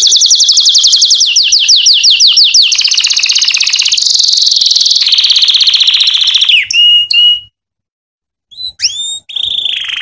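Canary singing: fast rolling trills of rapidly repeated notes, then a buzzier trill and a few clear whistled notes. It breaks off for about a second near the middle of the second half, then rising upswept notes lead into another trill.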